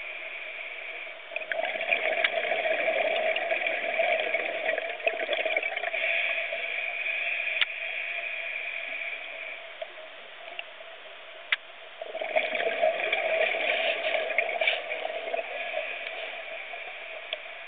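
Scuba regulator exhaust bubbles gurgling underwater in two long spells, the first starting about a second in and the second after a quieter stretch of about two seconds, over a steady hum.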